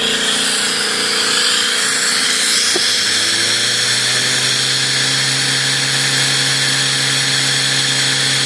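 Homemade five-rotor micro Tesla turbine spinning up on compressed air: a steady high whine mixed with the hiss of air rushing through it, coming on abruptly. A low steady hum joins about three seconds in.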